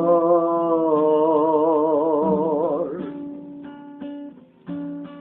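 A man's voice holds the final sung note with a widening vibrato for about three seconds, then fades. An acoustic guitar follows, strumming chords in short separate strokes.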